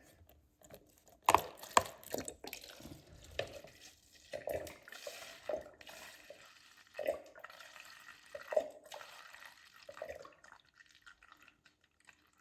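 Red wine vinegar being poured out in several short pours, with a couple of sharp clicks a little over a second in.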